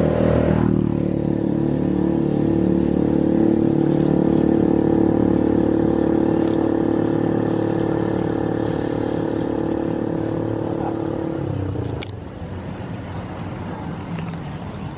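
A motor vehicle engine running steadily, its pitch stepping down about a second in. Near the end it slows and quiets, as if throttling back.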